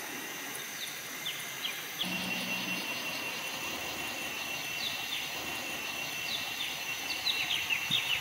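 Forest ambience: insects droning steadily at a high pitch while birds call with short, quick chirps, which come more often near the end.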